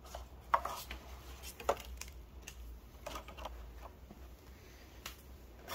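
Light handling of packaging: soft taps and plastic clicks as Pokémon booster packs are taken from a clear plastic tray, with two sharper clicks about half a second and just under two seconds in.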